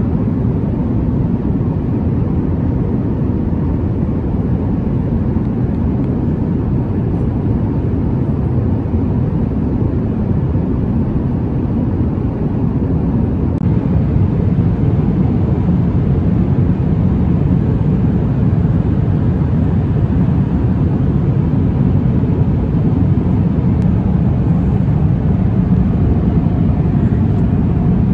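Jet airliner cabin noise in flight: a steady, even low rumble of the engines and air rushing past the fuselage, slightly louder from about halfway through.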